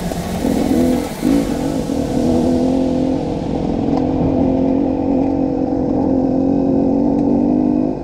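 Dirt bike engine running at a steady pull while riding, its note wavering and dipping briefly about a second in. A hiss over the top of it fades out about three seconds in.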